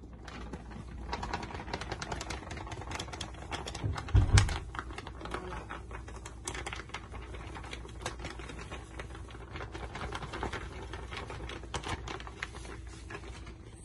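Plastic flour bag crinkling and crackling as flour is poured from it into a bowl, with a dull thump about four seconds in.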